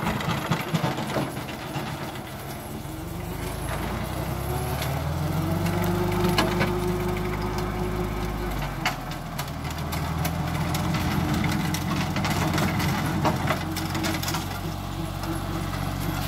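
Compact tractor's engine running while its rear-mounted forestry mulcher chops brush, the engine note rising under load for a few seconds midway and then easing back. Scattered sharp cracks of stems and debris are heard throughout.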